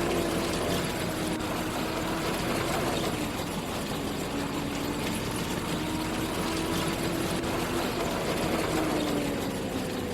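An engine running steadily under load, its hum wavering gently and dipping slightly in pitch near the end, typical of harvest machinery at work in wheat.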